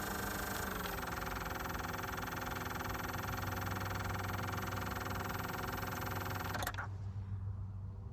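Black & Decker 1.5 HP pool pump running with a steady hum and a fast, even ticking. About six and a half seconds in there is a click, the higher part of the sound cuts off and only a low hum is left.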